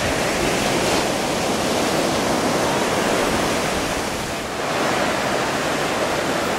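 Ocean surf breaking and washing in the shallows: a steady rushing wash that eases briefly about four seconds in.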